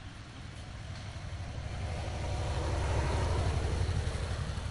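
A motor vehicle passing by, its engine rumble swelling to a peak about three seconds in and then fading.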